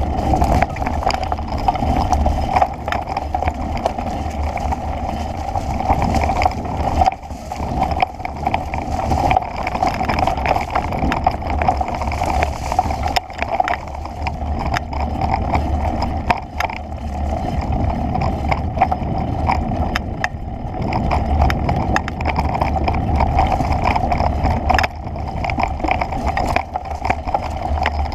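Steady rushing noise from a camera moving fast over a bumpy dirt trail, with frequent knocks and rattles from the jolting ride.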